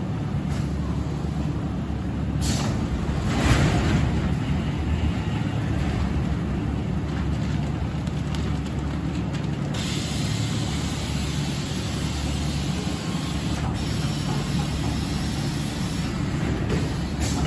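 Quilt vacuum packing machine running with a steady low mechanical hum, with two short rushes of noise about two and a half and three and a half seconds in.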